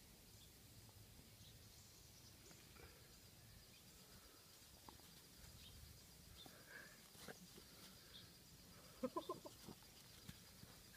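Near silence in the open air, with faint scattered chirps. About nine seconds in comes a brief run of short, quick animal calls.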